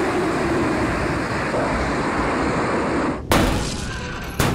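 A steady rushing noise, flight or storm sound effect, cuts off suddenly about three seconds in. Then two heavy impact thuds about a second apart as the robots touch down on the landing pad, the first the louder.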